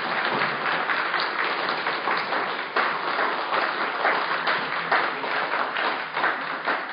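Room of people applauding, a dense steady patter of many hands clapping.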